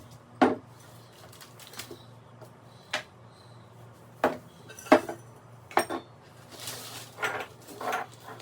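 Kitchen dishes and utensils clattering during cleanup: about seven separate clinks and knocks, spaced irregularly, the first and one in the middle the loudest.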